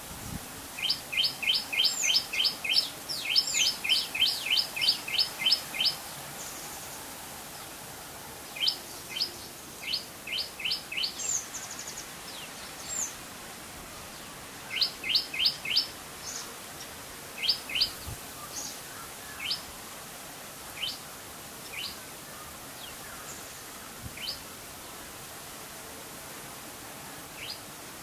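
Rose-ringed parakeet calling: a fast run of shrill repeated notes, about five a second, for the first six seconds. Shorter bursts and single calls follow and thin out toward the end, over a steady hiss of rain.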